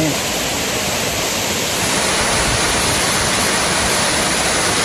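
Waterfall rushing, a loud, steady roar of falling water.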